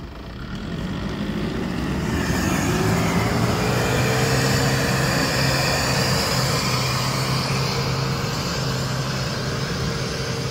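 Off-road 4x4's engine revving up to high revs at full throttle for an uphill climb, the pitch rising over the first couple of seconds and then held steady and loud.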